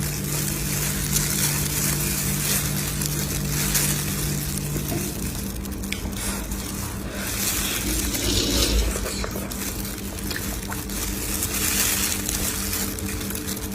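Wet liquid sounds of a pot of stewed monkfish, with scattered small clicks over a steady low hum; part of the hum stops about five seconds in.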